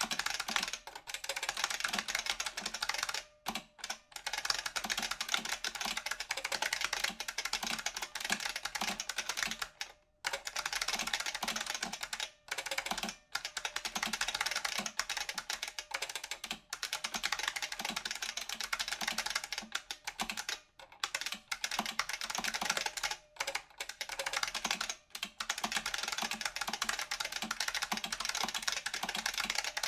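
Continuous fast typing on an IBM Model F XT keyboard, its stock buckling-spring switches clacking and pinging with every keystroke, broken by a few short pauses.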